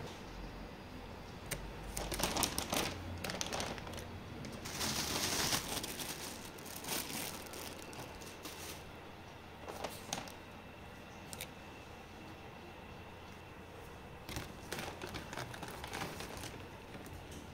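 Thin plastic carry bag and plastic-wrapped food packets rustling and crinkling as hands dig into the bag and pull the packets out, in irregular bursts.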